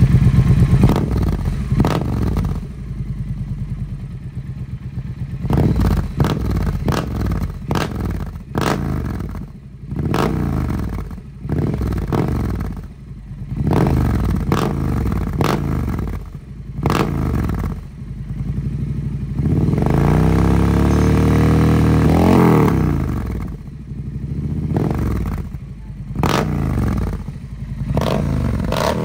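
Triumph Speed Twin 1200 parallel-twin engine idling through a Zard 2-into-1 full-system exhaust, its throttle blipped about a dozen times, each rev rising and falling quickly, with one longer, higher rev around two-thirds of the way in. The exhaust note is described as sounding great.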